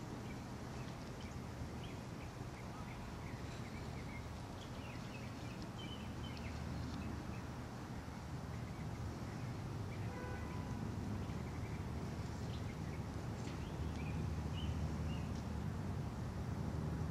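Outdoor background: a steady low rumble with scattered short bird chirps, and one brief pitched note about ten seconds in.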